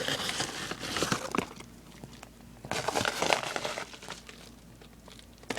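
Crinkling and rustling of packaging as a pile of lacrosse shooters is handled, in two spells, the first at the start and the second a little before the middle.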